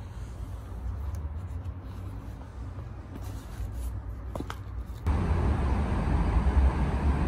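Quiet low rumble with a few faint clicks, then about five seconds in an abrupt cut to louder, steady outdoor traffic noise with a deep rumble.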